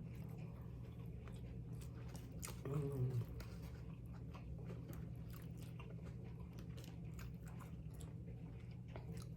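Close-miked chewing of a person eating, with small crunches and wet mouth clicks throughout, over a steady low hum. A short hum from the eater's voice comes about three seconds in and is the loudest moment.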